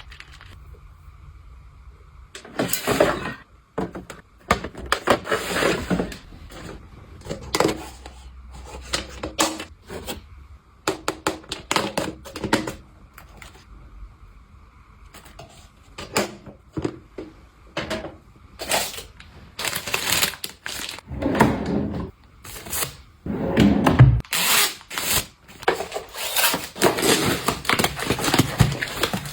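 Household items being handled and put away: a long run of clicks, knocks and rustles of containers and packaging being picked up, opened and set down, the loudest knock coming late on.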